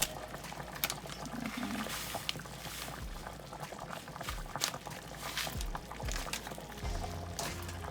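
Pot of soup bubbling, with small pops and clicks, under background music.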